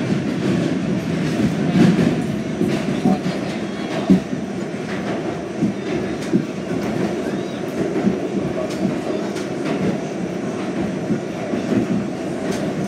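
Westinghouse-Amrail R68 subway car running through a tunnel, heard from inside the car: a steady low rumble from wheels and running gear, with scattered sharp clicks from the wheels on the track.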